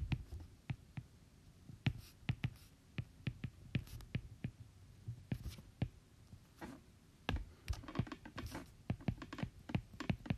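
Stylus tapping and scratching on a tablet's surface while writing by hand: quiet, irregular clicks, several a second.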